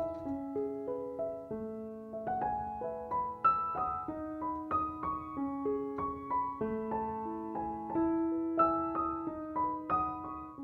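Background piano music: a slow melody of struck notes over held chords.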